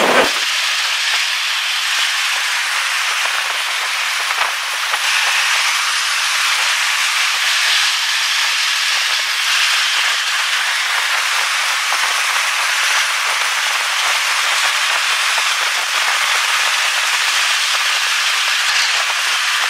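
Steady rushing hiss with some crackle and no low rumble: air and road noise rushing past the open side window of the moving truck.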